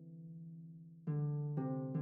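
Background music: a held note fading away, then two new notes about a second in and half a second later.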